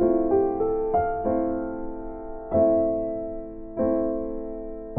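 Background piano music: slow, soft chords, each struck and left to ring and fade away before the next.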